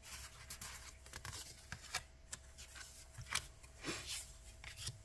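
Tarot and oracle cards handled by hand: cards slid off their decks and laid down on the table, a string of soft rustles, slides and light taps.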